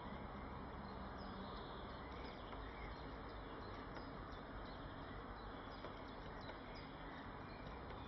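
Steady outdoor background hiss with faint, short, high bird chirps scattered throughout.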